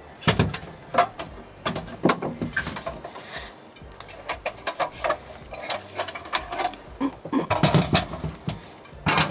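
Irregular clicks, knocks and clatter of camp cooking gear being handled and set up.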